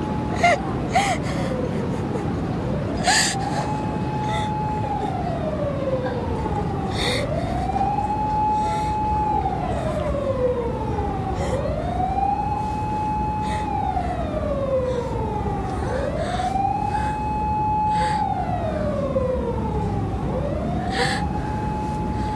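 An emergency-vehicle siren wailing in a slow repeating cycle: it rises, holds a high note for about a second and a half, then falls over about two seconds, coming round about every four seconds. Behind it is a steady hiss of street noise with a few short sharp noises.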